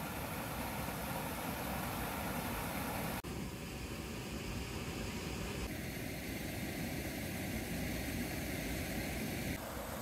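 Steady rush of water from a small waterfall spilling into a pool and the stream below it. The water noise changes sharply about three, six and nine and a half seconds in.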